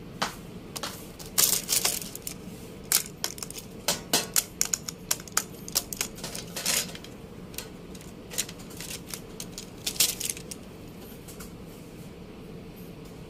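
Wooden coloured pencils clicking and clattering against each other and their box as they are pulled out and gathered by hand: a quick, irregular run of sharp clicks that stops about ten seconds in.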